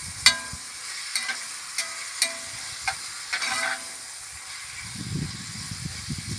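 Beef strips sizzling in hot oil in a wok as they brown. A utensil knocks and scrapes against the wok about six times in the first few seconds, some knocks leaving a short metallic ring.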